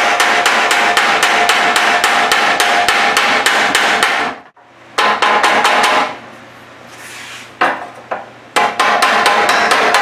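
Body hammer tapping rapidly on a Triumph Spitfire's steel front valance, about six or seven ringing metallic blows a second, as a dent near the bracket is worked out. The hammering stops about four and a half seconds in, comes back briefly, then goes quiet before resuming near the end.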